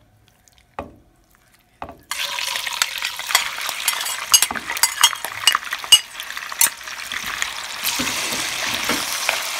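Two light knocks, then chopped beef liver slid into hot oil starts to sizzle loudly about two seconds in and keeps frying with constant crackling, while a metal spoon stirs it in the pot.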